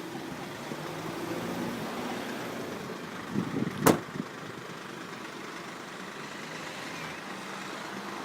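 A motor vehicle engine running steadily, with a single sharp click or knock just under four seconds in.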